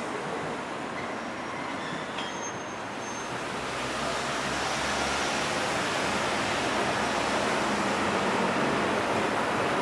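Street noise of trams and road traffic on a city street: a steady rumble of wheels and tyres with no distinct events, louder from about four seconds in.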